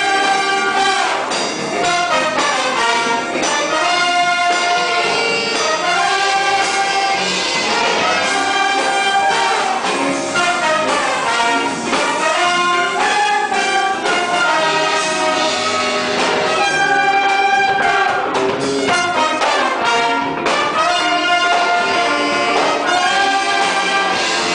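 Orchestra playing an instrumental piece at a steady loud level, in melodic phrases with held notes.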